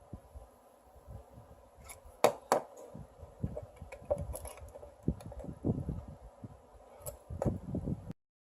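Small metal parts and tools clicking, clinking and rubbing as a rebuildable dripper atomizer is handled and worked on, with two sharp clicks about two seconds in; the sound cuts off suddenly near the end.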